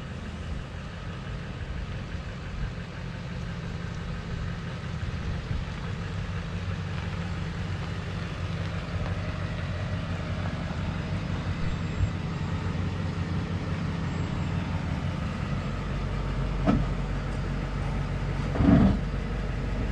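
Pickup truck engine idling steadily, growing slightly louder, with two short knocks near the end.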